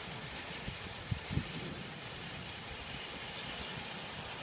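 Steady hiss of thunderstorm rain, with two brief low thumps a little over a second in.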